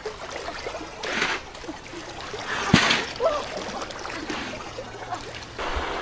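River water splashing and trickling as a person moves in the shallow water, with two louder splashes about a second and three seconds in. Near the end it changes to a steady rush of wind on the microphone.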